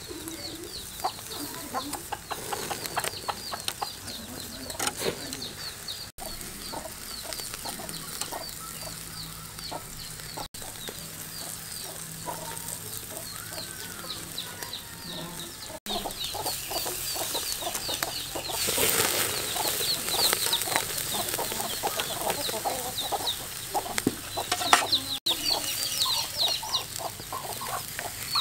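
Beef sizzling and crackling on a wire grill over charcoal, with chickens cheeping throughout in the background. The crackling grows louder about halfway through.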